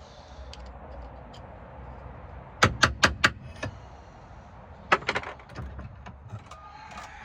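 Sharp metallic clicks and clinks of small metal parts being handled, in two quick clusters about two and a half and five seconds in, over a low steady hum.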